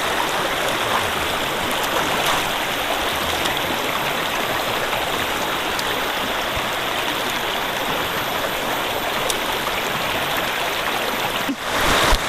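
Shallow, rocky stream rushing steadily over stones, with a brief dip about a second before the end.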